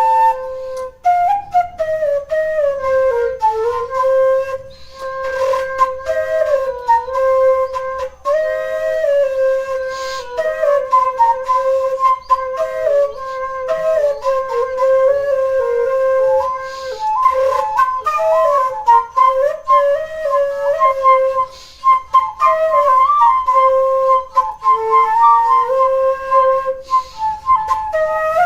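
Music: a solo wind instrument, flute-like, playing a slow melody one note at a time, with held notes, small ornaments and brief pauses between phrases.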